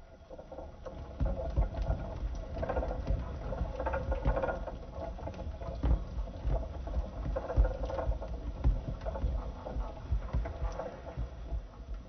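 Orbeez water beads tumbling and rattling in the turning plastic drum of a Casdon toy washing machine and dropping out into a plastic tub: a dense, irregular patter of small taps over a low rumble, which thins out near the end as the drum empties.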